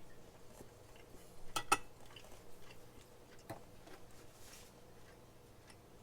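Cutlery clicking against a plate: two quick clicks about a second and a half in, and one more about three and a half seconds in.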